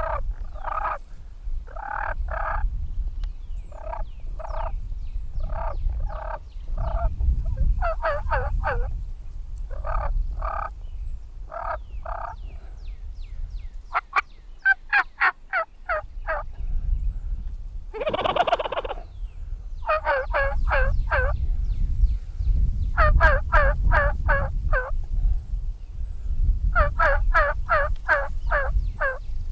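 Wild turkey gobblers calling close by, with short paired notes at first and then several rapid rattling gobbles, over a steady low rumble.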